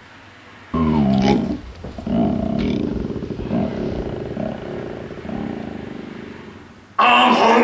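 A man's long, drawn-out belch: a loud, rasping rumble that falls in pitch and goes on for several seconds, with a louder, higher burst near the end.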